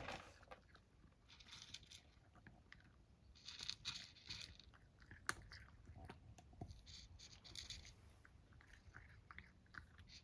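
A cat eating from its bowl: faint, scattered crunching and chewing of dry food in short bursts.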